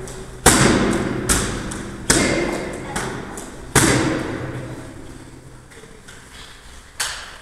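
Karate kicks striking a hand-held kick pad: a series of sharp smacks, the loudest about half a second in, two more strong ones around two and four seconds in, and a last one near the end, each trailing off in a short echo.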